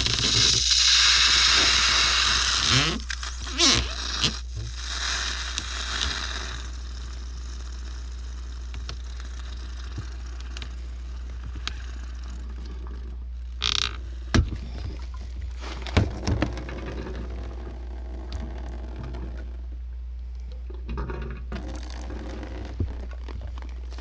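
PVC water pipe being cut and worked on by hand with a pipe cutter: a loud rushing scrape for the first three seconds and again more weakly between about five and seven seconds, then small scrapes and a few sharp clicks over a steady low hum.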